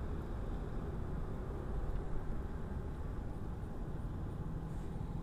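Steady low rushing background noise with no distinct events.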